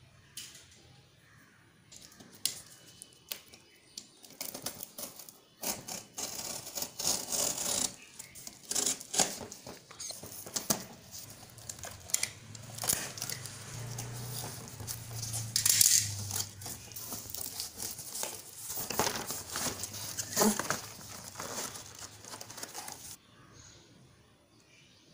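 Yellow utility knife slicing packing tape and cardboard on a shipping box, with irregular scraping, tearing and crinkling as the box is cut and pulled open. The noise stops abruptly about two seconds before the end.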